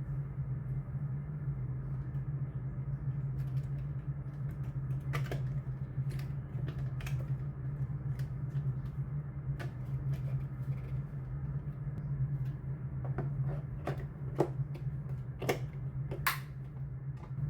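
Plastic parts of a vacuum cleaner's dust container and filter being handled: scattered light clicks and knocks, a few louder near the end, over a steady low hum.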